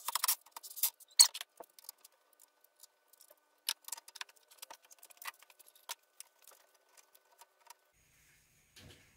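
Hands working a ski and its binding, making short scratchy clicks and rasps, close together in the first second or so. After that come scattered light clicks, knocks and rubs.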